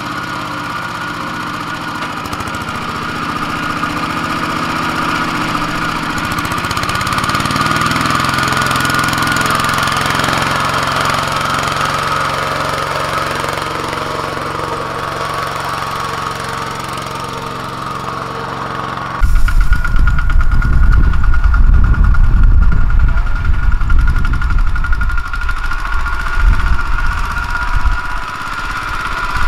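Single-cylinder diesel engine of a Kubota two-wheel walking tractor chugging steadily under load as it hauls a trailer of rice sacks through mud, swelling a little in level partway through. About two-thirds of the way in the sound cuts to a louder, closer tractor engine with a heavy low rumble.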